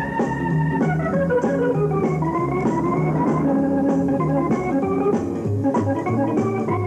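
Background film music: held, organ-like chords moving from note to note every second or so, over a light steady beat.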